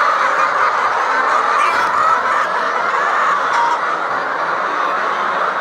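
A large flock of chickens in a poultry house clucking and calling all at once, a steady dense din with no breaks.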